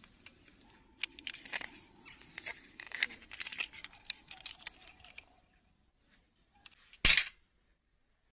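Handling noise from a small plastic doll and its stiff plastic clip-on dress being worked against pine twigs: a quick run of sharp clicks and crackles for a few seconds, then one loud short thump about seven seconds in.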